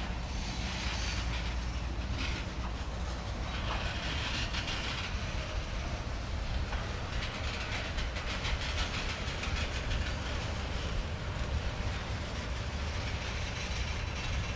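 Freight cars rolling slowly past, mostly tank cars and a covered hopper: a steady rumble of steel wheels on rail with a hiss, and faint clicking as the wheels cross rail joints.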